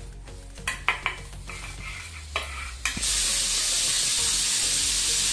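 A few clinks of a spoon on steel idli plates, then, about three seconds in, a pressure cooker suddenly starts venting steam through its whistle with a loud, steady, high hiss.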